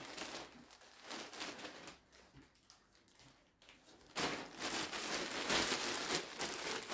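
Clear plastic garment bag crinkling and rustling as it is handled. The rustle comes in patches at first and grows louder and continuous about four seconds in.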